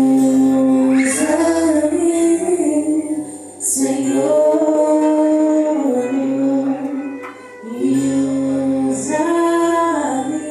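A woman singing a worship song with instrumental accompaniment, in long held notes grouped into phrases with short breaks between them.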